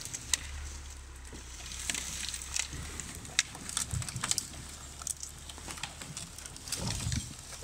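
Footsteps crunching over frozen snow and brushwood, with irregular snaps and crackles of twigs underfoot. A low steady hum lies underneath and fades out about halfway through.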